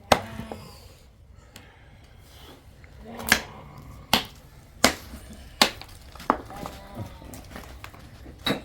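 Sharp knocks, one near the start and then a regular series about one every 0.7 seconds from about three seconds in, like blows struck during building work.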